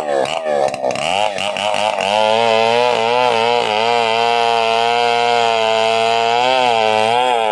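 Stihl 070 two-stroke chainsaw engine being blipped up and down for about two seconds, then held at high revs, running fairly steadily with a slight waver.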